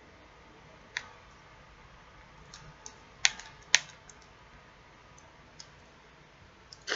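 Scattered sharp plastic clicks as teeth and fingers pry at a small, stubbornly sealed eyeshadow compact, with a single click about a second in and the two loudest close together a little past the middle.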